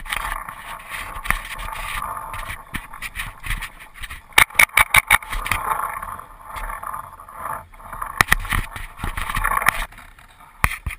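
Tippmann X7 paintball marker firing: a quick string of about six sharp shots a few seconds in, and another short burst of shots later. Between the shots a rough rustling noise comes and goes.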